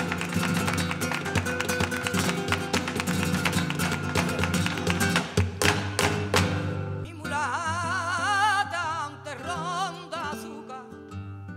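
Live flamenco: acoustic guitar under a dense, rapid patter of dancer's footwork and hand-clapping (palmas) for about the first six seconds. The percussion then stops, and a singer's voice with a wide, wavering vibrato comes in over the guitar.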